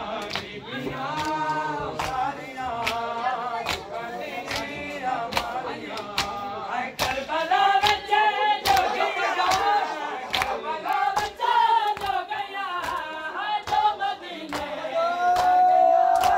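Men chanting a Punjabi noha, a Muharram lament, in unaccompanied chorus, kept in time by a steady beat of sharp slaps of matam chest-beating. Near the end a voice holds one long high note.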